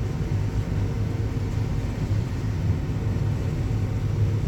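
Combine harvester running steadily while shelling corn: a constant low engine and machinery rumble.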